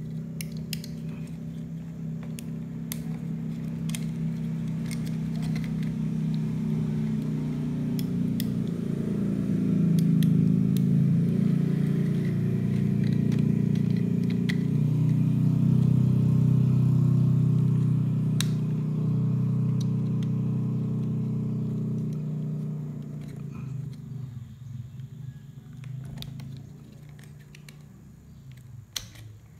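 A low engine drone grows louder through the middle and fades out near the end. Over it come light, scattered plastic clicks as a power window switch and its housing are handled and fitted into a door trim panel.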